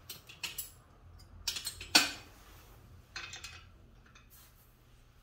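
A few light metallic clinks and taps, scattered over the first four seconds or so, the loudest about two seconds in, as of metal being handled in a workshop.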